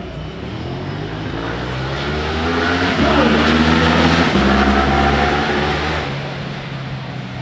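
Racing motorcycle engine at high revs passing by. It grows louder to a peak about three to five seconds in, its pitch dropping near the peak, then fades away.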